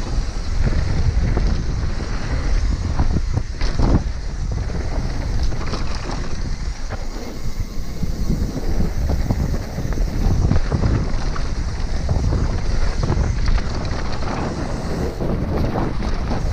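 Wind rushing over the camera microphone and tyres rolling on dry dirt as an enduro mountain bike descends a singletrack at speed, with scattered sharp knocks and rattles from the bike over bumps.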